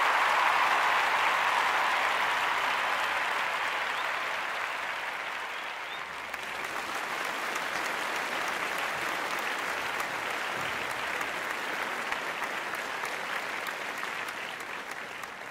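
Audience applause, loudest at the start and easing off, dipping about six seconds in and then going on at a lower level.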